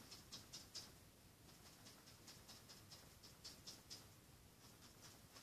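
Paintbrush dabbing and stroking on a stretched canvas to paint in bushes: faint, irregular soft taps, about two a second.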